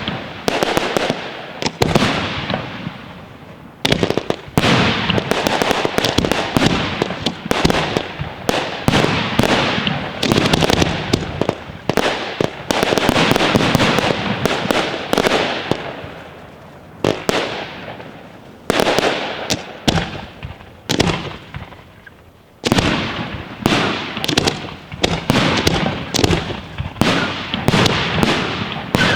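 A fireworks finale of F2–F4 batteries and shells firing in quick succession: sharp bangs and bursts overlapping, with crackling between them. There are short lulls about 3 seconds in and again around 17 and 21 seconds, before the barrage picks up again.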